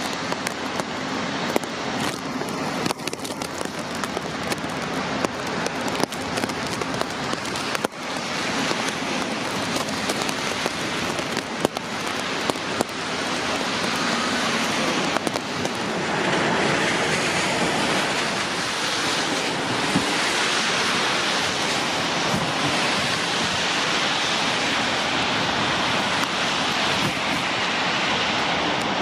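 Heavy rain: a dense steady hiss with raindrops tapping close by. A little past halfway the hiss grows louder and steadier and the taps thin out.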